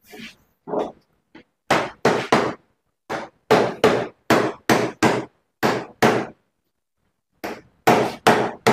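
Wooden mallet knocking a refrigerator's sheet-metal cover panel down into place: a steady run of sharp knocks, about two a second, with a pause of about a second near the end before the knocking resumes.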